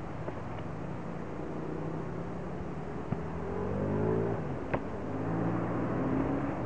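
A motor engine running in the background, its pitch rising and falling as it revs, over a steady outdoor hiss. Two sharp smacks of boxing gloves land, about three seconds in and just before five seconds.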